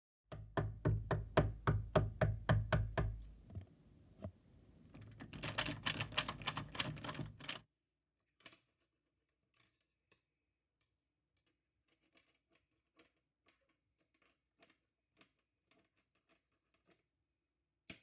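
A fast run of sharp clicks, about five a second, each with a low thump under it; after a short pause comes a denser run of brighter clicks, then scattered faint ticks.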